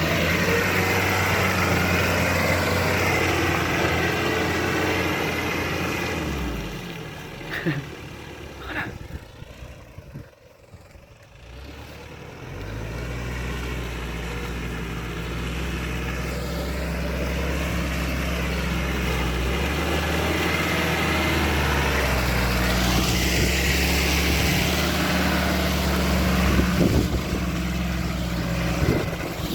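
Nissan Terrano WD21's engine running steadily as the vehicle drives off-road. It fades away about seven seconds in, with a couple of sharp knocks, goes nearly quiet for a few seconds, then comes back and runs steadily again.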